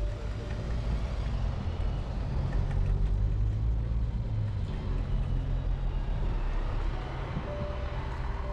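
Street traffic in deep snow: a city bus engine's low rumble passing close by, loudest a few seconds in, over a steady wash of traffic and wind noise.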